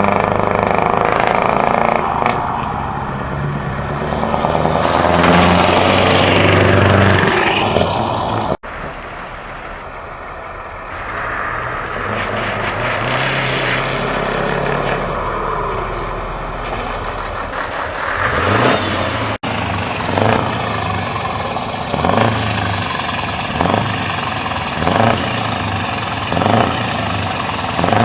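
Straight-piped truck engines running and revving through open exhausts, in three short clips one after another. The pitch sweeps up on revs several times, and near the end one engine is blipped in short throttle bursts about once a second.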